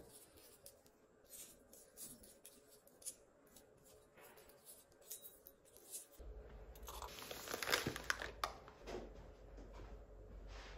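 Small metal mini handle brads being handled in the palm and a clear plastic box: scattered light clicks and rustles, busier from about six seconds in.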